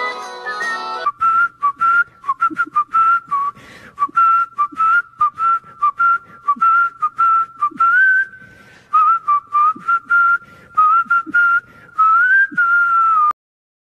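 A person whistling a tune in many short, quick notes hovering around one pitch, with small dips and a few upward slides between notes. It follows about a second of music, and the whistling cuts off abruptly near the end.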